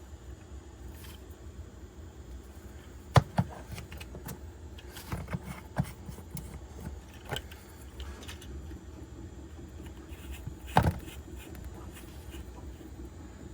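Small hard 3D-printed plastic parts being handled and fitted together: scattered clicks and light knocks, with two louder knocks about three seconds in and near the end.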